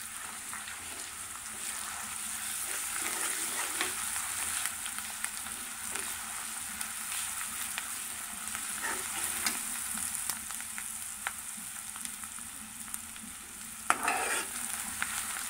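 Browned onions frying in oil and ghee with freshly added ginger-garlic paste and crushed chili, sizzling steadily in an aluminium karahi while a metal spatula stirs and scrapes, with light clicks against the pan. A brief louder burst comes near the end.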